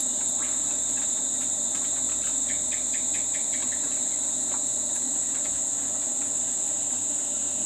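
Crickets chirping in a steady, high-pitched, unbroken trill. There is a short run of faint clicks about two and a half seconds in.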